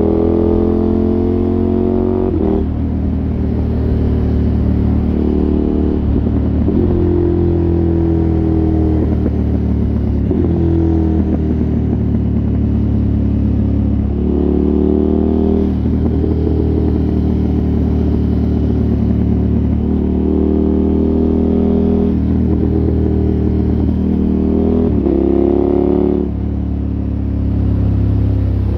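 KTM 1290 Super Adventure S's 1301 cc V-twin engine, fitted with an aftermarket exhaust, pulling under way: its note climbs and then drops sharply several times as the rider works the throttle and gears, over steady wind and road noise.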